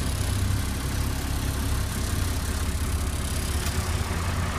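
Bus engine running with a steady low rumble, heard from inside the bus.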